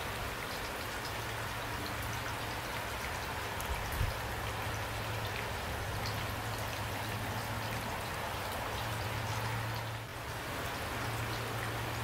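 Steady rain falling, with scattered individual drops ticking through the wash of noise. A low steady hum runs underneath, and there is one brief low thump about a third of the way in.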